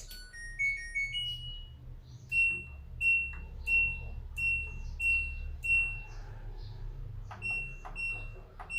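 LG front-load washing machine's control panel: a short rising electronic tune, then a series of single beeps at one pitch, each with a button click, about two-thirds of a second apart as the controls are set for a rinse-and-spin cycle.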